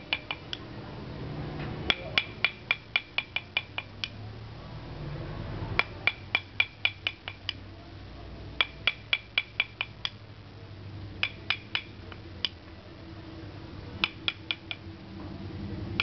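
Small chisel tapped with a mallet in quick runs of light strikes, about five a second, each strike with a brief metallic ring, as letters are cut into a wooden mask. There are about six runs, separated by short pauses.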